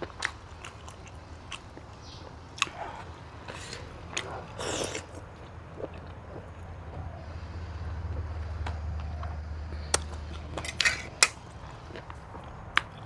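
Close-miked mouth sounds of eating: wet chewing with scattered sharp clicks and crunches as bites of seafood papaya salad and boiled fish roe are taken. A low hum swells and fades in the middle.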